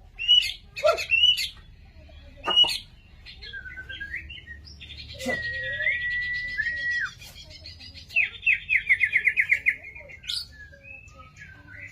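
White-rumped shama (murai batu) singing a varied song of loud whistled phrases, with a long held whistle about halfway through and a rapid run of about ten repeated notes near the end.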